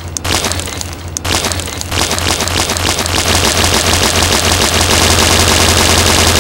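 Loud motorcycle engine noise, a fast machine-gun-like rattle over a steady low drone, growing louder about two seconds in.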